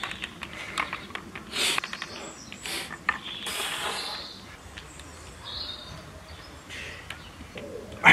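Adjustable dumbbells clicking and clinking lightly as they are lifted and handled, with a few short puffs of breath from the exercise.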